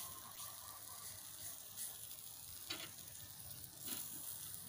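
Marinated beef ribs sizzling faintly on a wire grill over charcoal, with a couple of soft clicks near the end.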